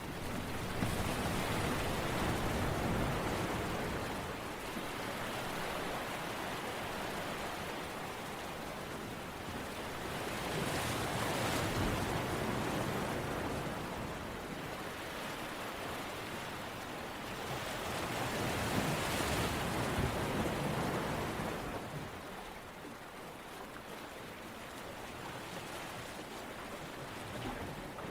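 Surf breaking and washing back as a rushing noise that swells and recedes in slow surges, about one every eight seconds.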